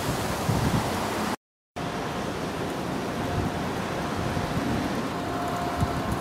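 Storm-force wind rushing, with gusts buffeting the microphone. About a second and a half in, the sound cuts out briefly, then a steady rush continues with a faint steady hum underneath.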